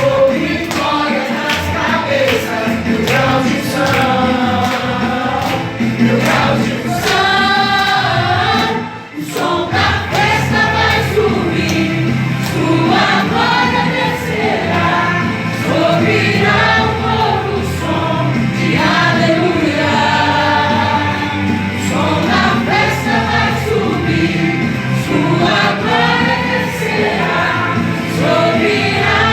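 Gospel worship song with choir singing over a band, with a brief drop about nine seconds in.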